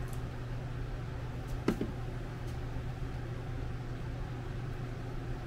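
Steady low hum of background machinery, with one sharp click a little under two seconds in.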